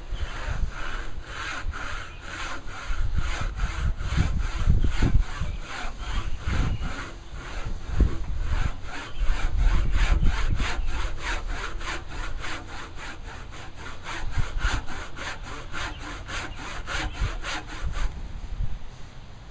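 Handsaw cutting into a wooden timber sill, steady back-and-forth strokes at about two to three a second that stop near the end. A low rumble comes and goes under the strokes.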